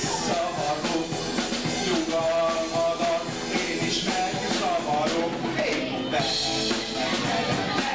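Live rock band playing, with a man singing into a handheld microphone over a drum kit.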